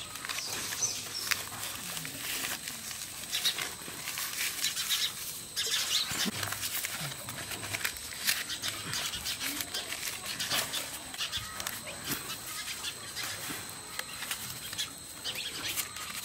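Close, irregular crinkling and rustling of leaves as a fresh green leaf is folded and pressed into a small packet, with dry leaves shifting underneath. Faint low calls come in the background now and then.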